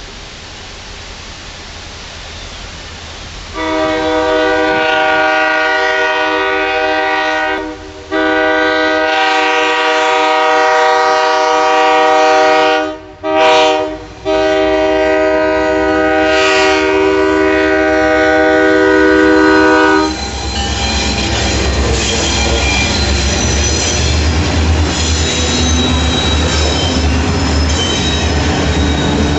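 Diesel locomotive's multi-note air horn sounding the grade-crossing signal: two long blasts, a short one and a final long one. The locomotive then passes close by, its diesel engine running under the clatter of wheels over the rail joints and high wheel squeal.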